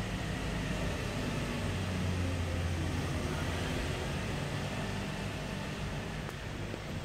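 Steady low mechanical rumble with an even hiss over it.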